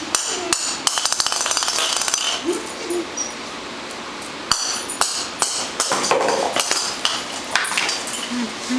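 Hard plastic Babble Ball toy knocking and clattering on a hard floor as a puppy bats and mouths it. A dense run of rapid clicks comes about a second in, then scattered sharp knocks.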